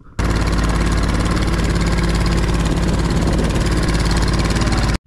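Small boat's engine running steadily at a constant speed; the sound starts suddenly just after the beginning and cuts off suddenly near the end.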